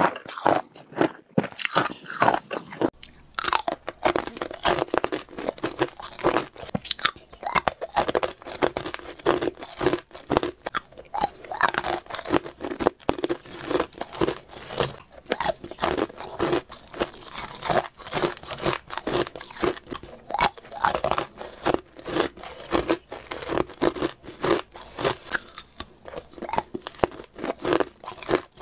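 Hard ice being bitten and crunched between the teeth and chewed, close to the microphone: a dense, unbroken run of sharp crunches.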